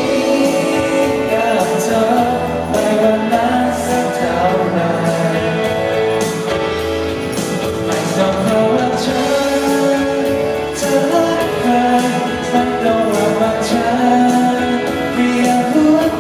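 A man singing a slow song live into a microphone while accompanying himself on a Roland piano.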